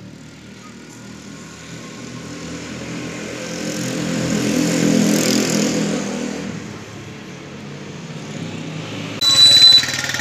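A motor vehicle driving past: engine and road noise swell to a peak about five seconds in, then fade away. Near the end the sound jumps abruptly to a louder noise with a short high tone.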